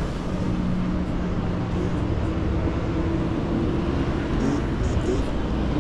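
Steady city street traffic noise, with vehicle engines running and a low hum underneath.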